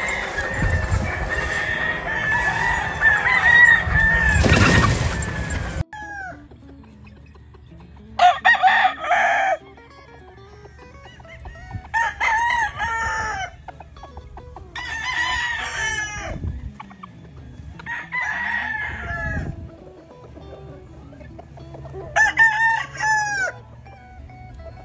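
Grey Butcher Radio gamecocks crowing. After a noisy first six seconds, five long crows come one after another a few seconds apart.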